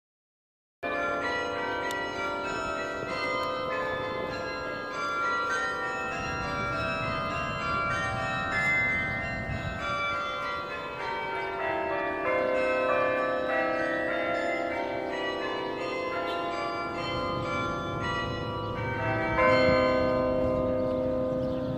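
Soldiers' Tower carillon playing a tune: many tuned bronze bells struck in turn, their tones ringing on and overlapping, over a low background rumble. The bells start about a second in.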